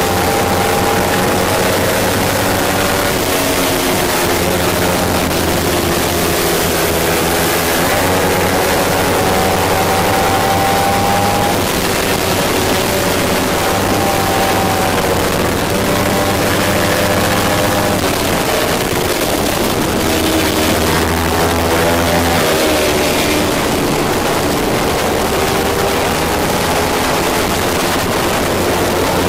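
Kawasaki Ninja 300 parallel-twin engine at racing revs. Its pitch climbs through each gear and drops back at each shift or braking point, several times over, under heavy wind rush on the bike-mounted camera.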